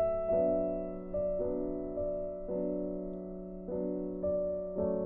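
Slow background piano music, with notes struck and left to fade.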